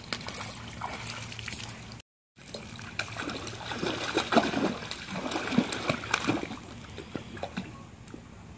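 Small dog splashing and sloshing in shallow pool water, dipping its face in, with water dribbling around it. Loudest and busiest from about three to six and a half seconds in, with a brief dropout about two seconds in.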